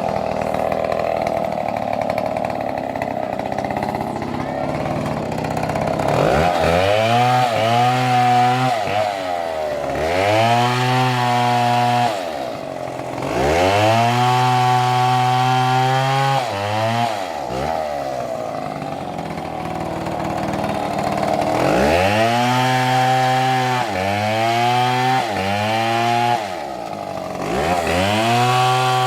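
Two-stroke chainsaw cutting wood. The engine revs up and drops back again and again, with a rougher, steadier stretch at the start and another about two-thirds of the way through.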